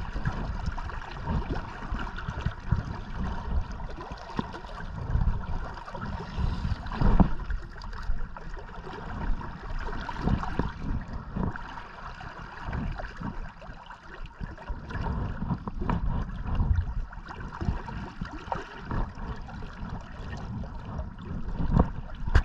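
River water flowing and lapping close by, a steady rushing hiss with irregular low rumbles throughout.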